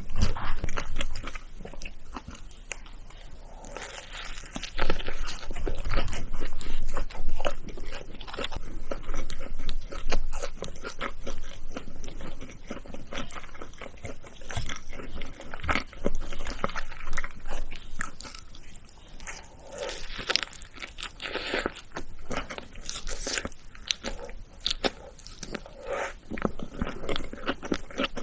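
Close-miked eating of fast food: bites and crunchy chewing, coming in irregular bursts.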